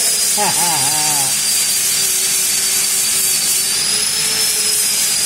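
TIG welding setup running: a steady hiss with a thin, high-pitched whine throughout.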